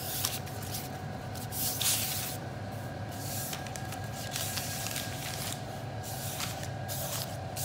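Fine 1200-grit sandpaper dragged lightly by hand over lacquered leather seat pleats, de-nibbing the clear lacquer coat between coats. It makes soft rubbing strokes at irregular intervals over a steady low hum.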